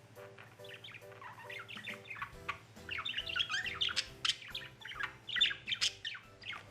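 Pet budgies chirping and chattering, with many short calls that get busier in the second half.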